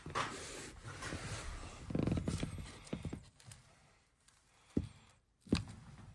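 Hands rustling and scraping among a pickup bench seat's exposed zig-zag wire springs and burlap padding, then two sharp knocks a little under a second apart near the end.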